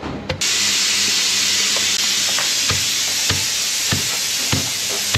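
Food hitting hot mustard oil in a kadai: a loud, steady sizzle starts suddenly about half a second in. A ladle stirring knocks against the pan about every half second.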